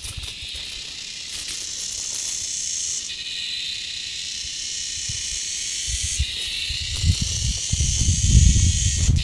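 A steady, high-pitched insect chorus shrilling in a coffee plantation, its pitch shifting a little twice. Low thuds of footsteps come in during the second half.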